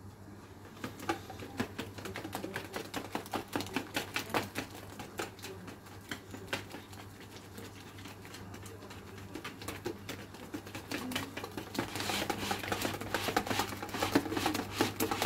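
Quick clicking of a wire whisk in a plastic bowl as eggs are beaten into a yeast batter, then, from about twelve seconds in, louder, denser sounds of a hand mixing the wet, sticky dough.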